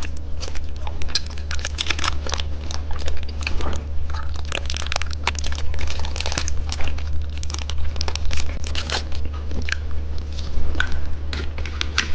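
Close-miked crunching and crinkling: hard candy being bitten and chewed while its plastic wrapper is handled, in many irregular sharp cracks.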